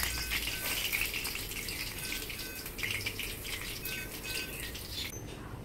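Rohu fish pieces deep-frying in hot oil in a kadhai: a steady crackling sizzle that cuts off about five seconds in.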